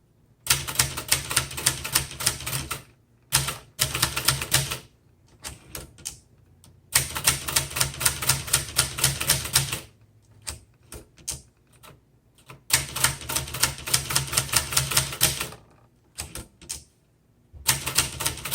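Typing on a 1972 Webster XL-747 (Brother-made) manual portable typewriter: fast runs of key and typebar clacks in several bursts, separated by short pauses.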